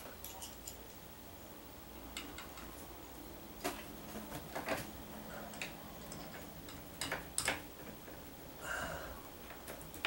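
Scattered light clicks and taps of metal hardware as a ceiling fan blade bracket is lined up against the motor hub and its screws are driven in, over a low steady hum.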